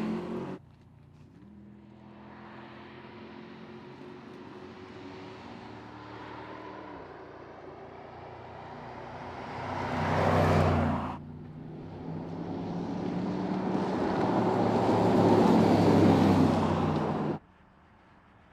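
Mercedes-AMG GT's 4.0-litre twin-turbo V8 engine and exhaust under way. The engine runs steadily, swells in a short burst of acceleration about ten seconds in, then builds in a longer pull that cuts off suddenly near the end.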